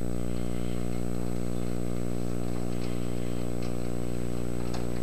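Metal engine lathe running with a steady hum and a slight pulsing about four times a second while the single-point tool takes a facing cut across the end of the workpiece; a few faint ticks come in the second half.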